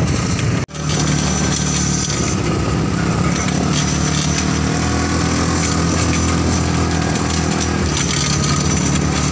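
ATV engine running steadily under way on a dirt trail, heard from the rider's seat. The sound cuts out sharply for an instant under a second in, then carries on unchanged.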